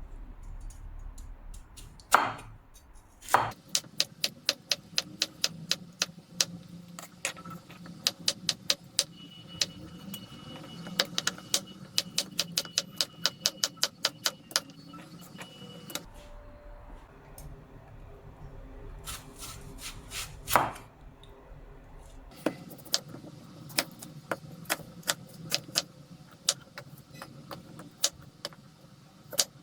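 Kitchen knife chopping food on a cutting board in quick runs of sharp strokes, several a second, with short pauses and a few heavier knocks.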